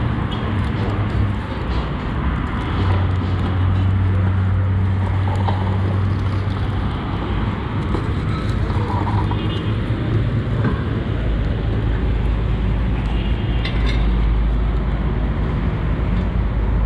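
Steady road traffic with a low engine drone that drops deeper about two-thirds of the way through, and occasional clinks of lump charcoal being raked with a metal shovel across a steel grill tray.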